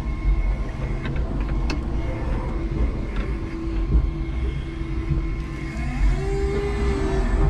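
Electric forklift truck driving with a loaded pallet, heard from inside its cab: a steady low rumble with a thin electric whine over it. A louder whine sounds for about a second near the end.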